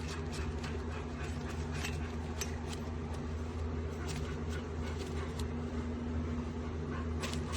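A paper coffee filter crinkling and clicking faintly as it is pressed down into a percolator's grounds basket, over a steady low hum.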